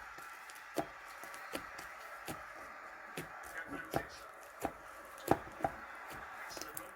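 Slime being pressed and worked by hand, giving sharp little pops and clicks about every three-quarters of a second over a faint steady hiss.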